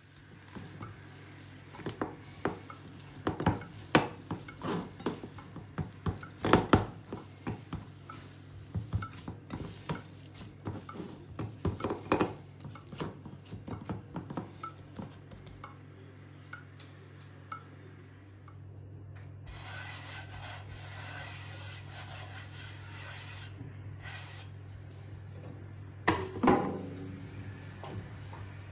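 A hand kneading a flour-and-egg dough in a ceramic bowl: squishing, rubbing and irregular knocks against the bowl through the first half. From about two-thirds of the way in the sound turns to a steadier rubbing hiss as flour is spread over a wooden board, with a low hum underneath.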